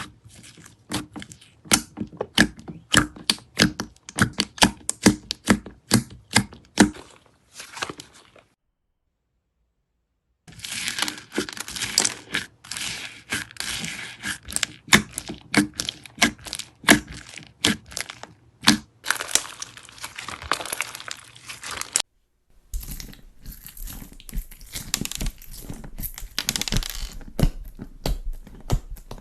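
Slime being squeezed, poked and stretched by hand, giving quick crackling pops and clicks. The sound cuts out for about two seconds a third of the way in, then comes back as a denser crackle and later as a new clip with a low hum underneath.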